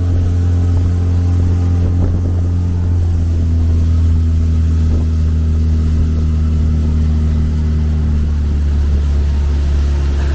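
Motorboat engine running at a steady speed: a loud, even, deep drone that holds its pitch.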